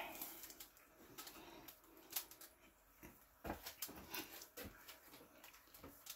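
Faint scattered clicks and light knocks from a painting canvas being handled and tilted by gloved hands.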